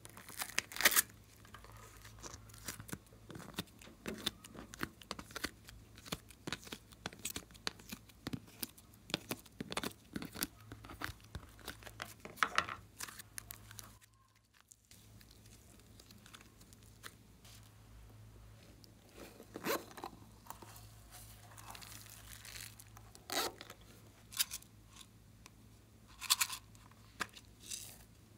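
Foam-bead clay and slime being peeled and squeezed by hand: a stream of small crackles and tearing sounds with louder snaps now and then, broken by a brief pause about halfway through.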